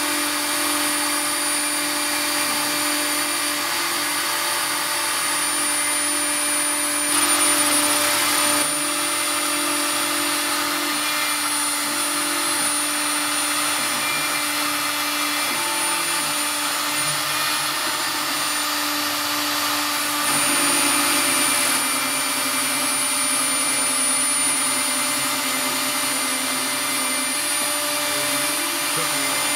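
CNC router spindle with a 2 mm diamond-toothed cutter milling 2 mm fibreglass (GFK) plate, together with the dust-extraction vacuum drawing through the brush shroud. Steady machine noise with a high whine, briefly louder about seven seconds in and again around twenty seconds in.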